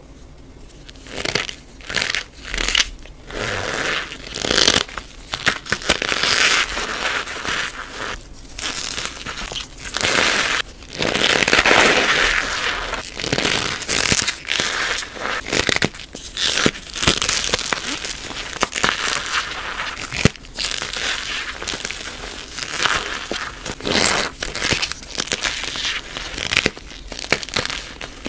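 Bare hands squeezing and crushing blocks of gym chalk packed in cornstarch powder: dry, crumbly crunches in irregular bursts as the blocks break apart and the powder compresses.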